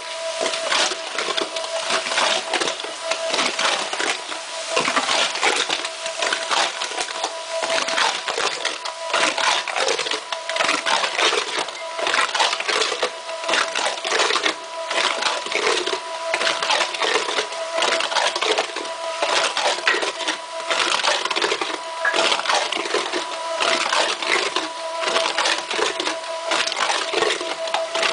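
Small 100 V tube-type (squeeze) mortar pump running while spraying mortar: a steady whine under dense, irregular rattling and crackling.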